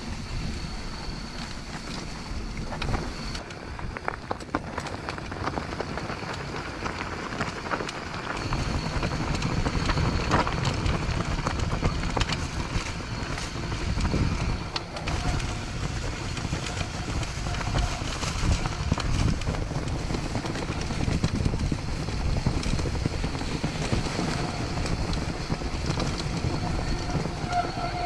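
Mountain bike riding down a downhill trail: wind noise on the microphone over a steady rumble of tyres on dirt, with frequent rattling clicks from the bike. The rumble grows heavier about eight seconds in.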